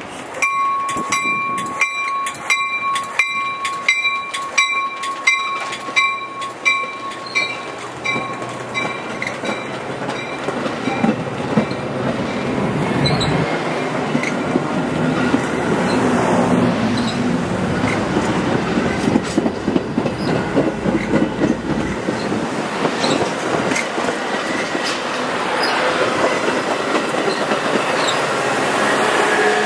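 A bell rings about twice a second for the first several seconds, then fades out as a passing train takes over: the steady rumble and clatter of railcar wheels on the rails, building toward the end.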